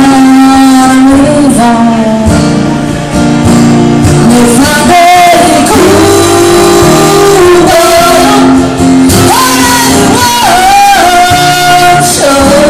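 Live duet of a woman and a man singing through microphones over a strummed acoustic guitar, the voices loud and holding long notes with slides between them.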